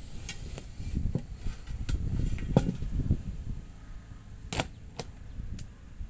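Rubber inner tube being worked by hand into a tractor's front tyre: rough rubbing and flapping of rubber, with scattered sharp clicks and snaps, the loudest about four and a half seconds in.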